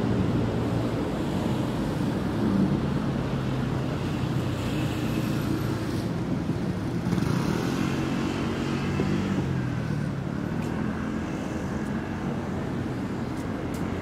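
City road traffic: car engines running steadily as vehicles drive past, their pitch rising and falling as they go by.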